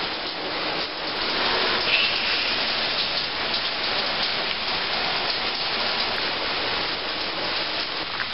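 Shower running: a steady spray of water falling onto the bather and the tub.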